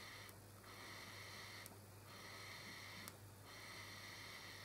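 Faint airy draws through an e-cigarette's rebuilt Aspire atomiser head: primer pulls, sucking air through the unlit coil to pull e-liquid into the cotton wick. They come as several pulls of about a second each with short breaks between.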